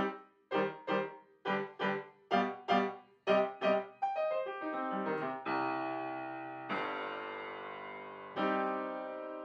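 Background piano music: short detached chords struck in quick pairs, then about four seconds in a fast run of notes leading into held chords that ring out.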